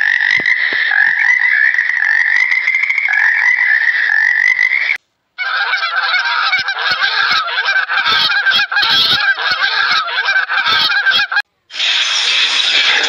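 A flock of Canada geese honking over one another for about six seconds. Before it comes one unbroken high call, slowly rising in pitch, for about five seconds, and the geese are cut off by a short break into a different sound near the end.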